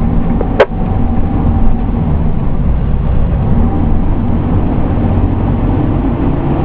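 Pierce Enforcer fire engine's diesel engine running steadily as the truck drives, heard from inside the cab, with a single sharp click about half a second in.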